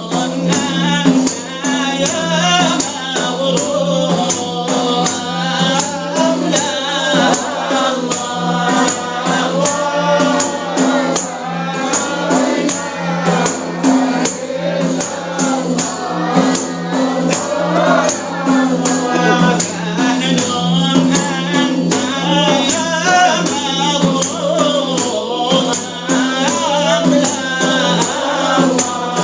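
Sufi devotional chant: a lead voice with a group of voices singing over a steady hand-drum beat with jingles.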